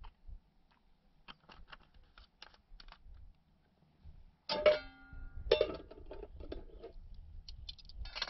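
Metal camping cookware being handled: light clicks and clinks of pots and lids. About halfway through, a louder knock of metal on metal rings briefly, followed by more clattering.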